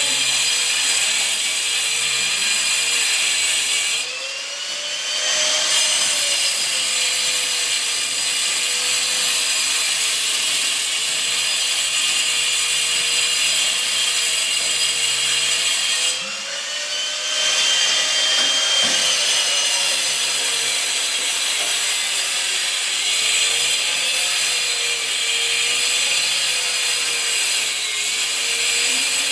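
Angle grinder with a cutting disc slicing along ceramic wall tiles, the motor tone wavering under load. Twice, about four seconds in and again about sixteen seconds in, the disc eases out of the cut: the noise drops and the motor speeds up before it bites again.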